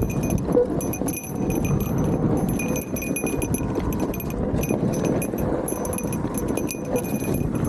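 Motorcycle running on a rough trail ride, its engine and ride noise a steady rumble under a constant fast metallic jingling and rattling.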